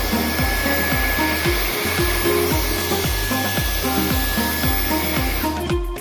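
Dyson cordless stick vacuum running on a wooden floor, a steady airy whine with a high tone in it, under background music with about two drum beats a second. The vacuum sound cuts off about five and a half seconds in, leaving only the music.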